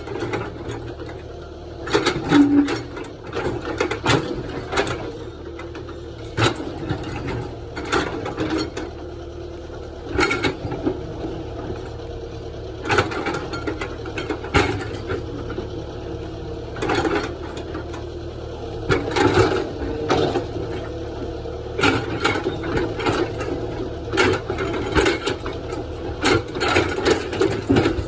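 Excavator working: its engine runs steadily underneath while the bucket and arm linkage give off repeated metallic clanks and knocks at irregular intervals.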